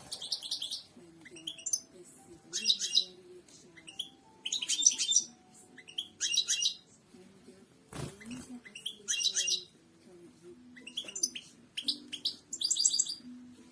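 Goldfinch singing: repeated short phrases of rapid, high twittering and trilling, one about every one to two seconds. A sharp click sounds about eight seconds in.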